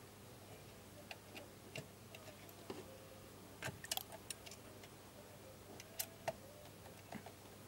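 Faint, scattered small clicks and ticks of a screwdriver working the screw of a terminal as a wire is fastened into the V1 terminal of a KIMO Lektromik braking unit, with a few sharper clicks about three and a half to four seconds in and again around six seconds.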